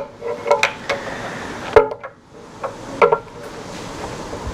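About half a dozen irregular knocks and clinks of hand tools being handled during engine work, some with a brief metallic ring. The loudest comes a little under two seconds in.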